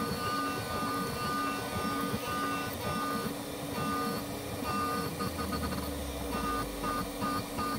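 Small CNC mill's spindle whining steadily while a single-flute end mill cuts into a block of HDPE plastic, with a grinding cutting noise under the whine. Toward the end the sound turns choppy, with short breaks.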